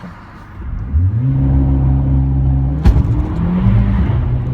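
Mercedes-Benz CLA45 AMG's turbocharged 2.0-litre four-cylinder revving up about a second in and held at steady revs on launch control. A sharp thump comes near the three-second mark as the car launches, and the engine pitch drops and then climbs again as it accelerates.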